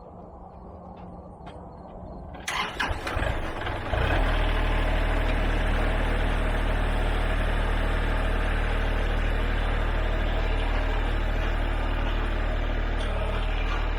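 Kubota L3301HST tractor's three-cylinder diesel engine cranking over about two and a half seconds in and catching about a second and a half later. It then runs steadily.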